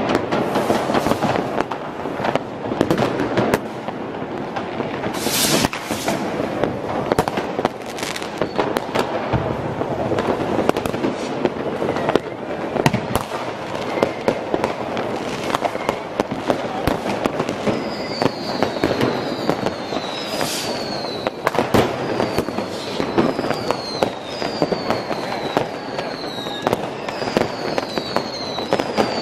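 New Year's Eve fireworks and firecrackers going off nonstop: a dense crackle of bangs and bursts, loud throughout. In the last ten seconds or so a run of short falling whistles comes about once a second over the bangs.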